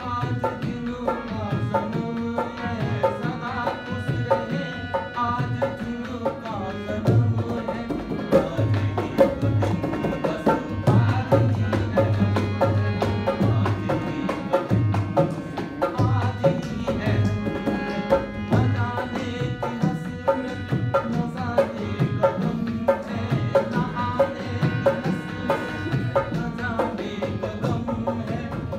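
Harmonium playing held reed notes and chords over a two-headed hand-played barrel drum keeping a steady rhythm, with a man singing along in parts.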